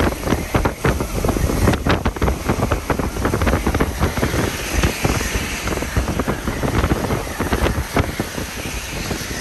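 Hurricane-force wind gusting against the microphone with a loud, uneven low rumble and constant irregular pops, over a steady hiss of wind-driven rain.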